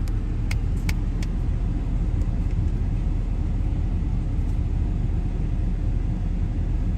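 Ford F-350 pickup running in a drive-thru line, heard from inside the cab as a steady low rumble. A few light clicks come about half a second to a second in.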